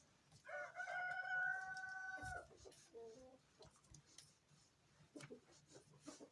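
A rooster crowing once: a long call held on one pitch for about two seconds, dropping at the end. A short, softer call and a few faint clicks follow.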